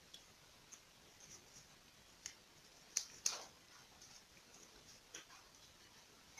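Faint crinkles and clicks of a small paper square being folded and creased by hand into an origami module, with a few sharper paper crackles about three seconds in.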